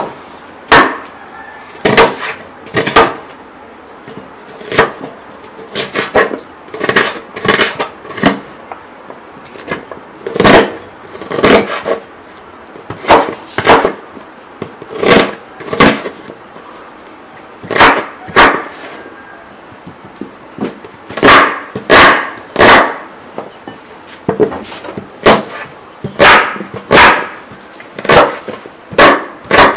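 Knife chopping vegetables on a cutting board: irregular sharp knocks, often about one a second and sometimes in quick pairs.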